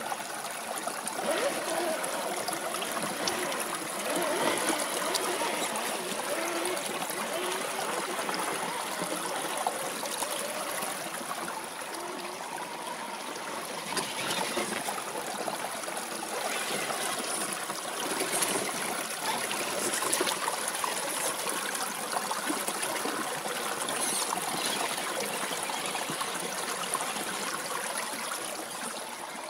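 A shallow, rocky creek babbling and trickling steadily over stones.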